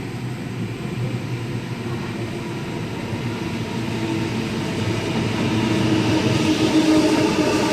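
Train running and drawing closer, its steady running noise and motor hum growing louder toward the end.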